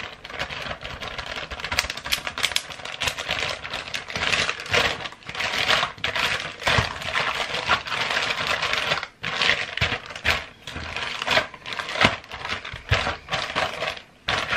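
Plastic zip-lock bag crinkling and rustling as it is zipped shut and the flank steak in marinade inside is turned and kneaded, a dense crackle with a short lull about nine seconds in.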